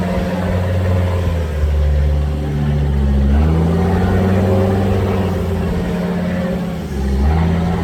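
Troller 4x4's engine running loud under load off-road, a deep steady drone whose pitch steps up about three seconds in and dips and rises again near the end.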